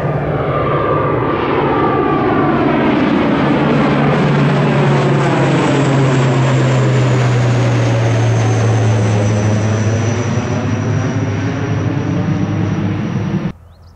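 ATR 72-600 twin turboprop airliner climbing out after take-off and passing overhead: a steady propeller drone with a low hum that sinks slightly in pitch as it goes by, and a high whine above. The sound cuts off suddenly near the end.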